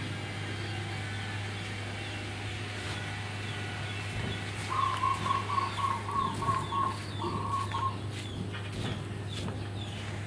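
A chicken clucking in a quick run of about eight clucks midway through. Behind it are small high falling chirps repeating a few times a second and a steady low hum.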